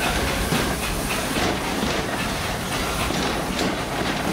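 Narrow-gauge steam train heard from its open-sided passenger car: steady running noise of the cars on the track, with occasional wheel clicks over the rails and a hiss of steam.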